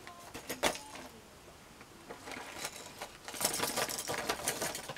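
Old fishing lures being handled: a few light clicks, then from about two seconds in a dense run of rustling and small metallic clicking as the lures and their hooks are picked up and moved about.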